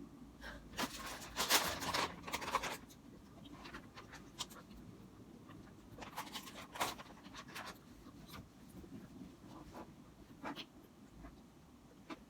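Quiet rustling of paper pages being handled and turned, in two clusters about a second and six seconds in, with scattered light clicks between.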